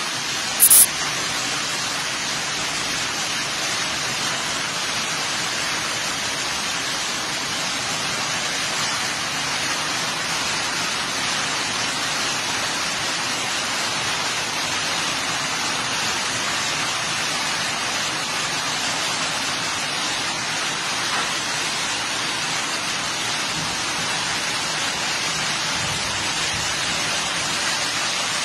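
Heavy rain falling steadily on garden grass and leaves, a dense even hiss. About a second in there is one brief, sharp, high-pitched click.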